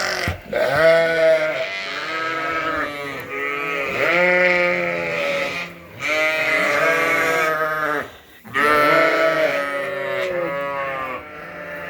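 Many sheep bleating loudly and almost without pause, calls overlapping each other: hungry sheep calling for their feed because they think it is dinner time.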